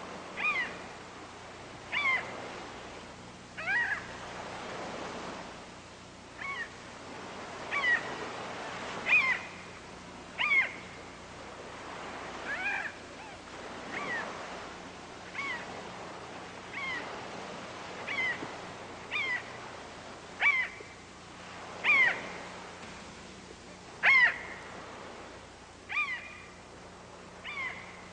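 An animal calling again and again: a short call about every one and a half seconds, each dropping in pitch, over a soft hiss that swells and fades.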